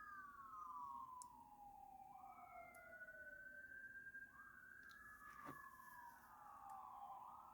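Faint emergency vehicle sirens in wail mode: at least two overlapping wails, each rising, holding high, then sliding slowly down over a few seconds.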